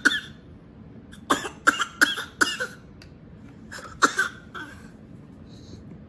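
A baby coughing and gagging on spoon-fed puree, his first solid food: a quick run of about five short coughs a second or so in, then another cough around four seconds in.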